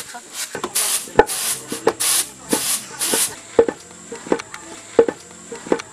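Wooden pestle pounding grain in a wooden mortar, a dull knock about every two-thirds of a second. For the first half or so it is joined by rhythmic swishing of grain tossed on a bamboo winnowing tray, which stops a little past halfway.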